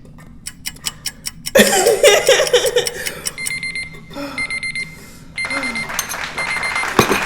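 Countdown timer alarm going off as the five-minute challenge time runs out: a high electronic beep repeating in quick bursts of several beeps each, starting about halfway through.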